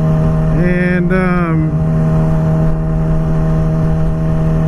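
Yamaha R6 sport bike's inline-four engine running at a steady speed while cruising, with wind rumbling on the helmet microphone. A short vocal sound from the rider comes about a second in.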